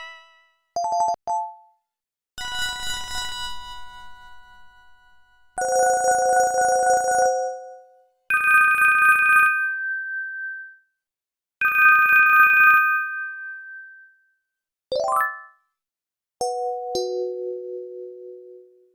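Panasonic phone ringtones playing one after another with short gaps: about seven electronic beeps and ringing tones of half a second to three seconds each, including a quick rising glide and, near the end, two tones stepping down in pitch.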